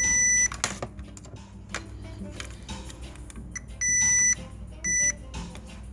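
Digital multimeter beeping three times, each a steady high tone: two half-second beeps, at the start and about four seconds in, and a shorter one near the end, with light clicks of the probes between them.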